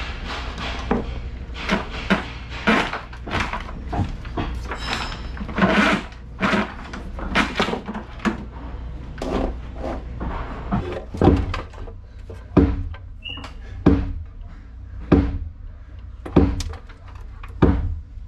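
Irregular knocks and clatter of electrical wires being pulled and fed down through a hollow wooden table pedestal, over a steady low hum. About eleven seconds in, a run of evenly spaced hard knocks begins, one about every 1.3 seconds.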